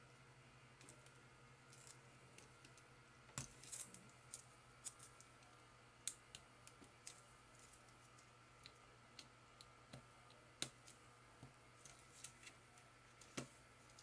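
Faint scattered clicks and scrapes of a small pointed tool working under the adhesive slide pad on the plastic base of a Razer DeathAdder Elite mouse, with a few sharper clicks among them.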